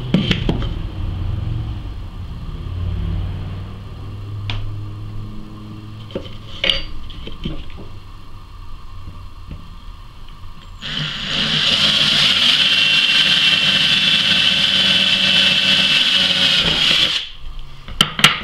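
Cordless drill running steadily for about six seconds as its bit bores through a metal teaspoon, a high whine that starts about eleven seconds in and cuts off suddenly. Before it come a few knocks and clicks of the spoon and drill being handled, and near the end a couple of sharp clicks.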